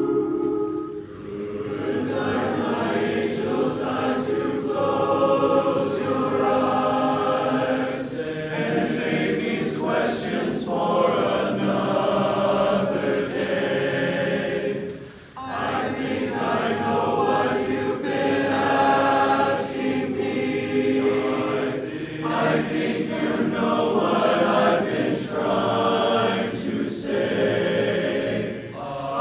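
Men's chorus singing in four-part TTBB harmony, with short breaks between phrases about a second in and just past the halfway point.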